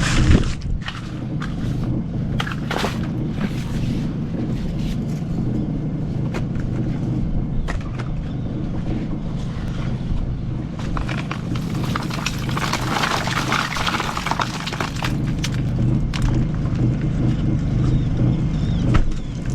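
Cement mixer running with a steady hum, oysters clattering and knocking in the turning drum as they are tumbled to knock barnacles off the shells.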